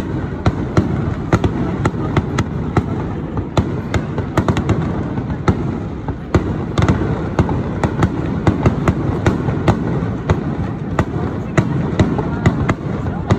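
Aerial fireworks going off in a rapid barrage: sharp bangs several times a second over a continuous low rumble of bursts.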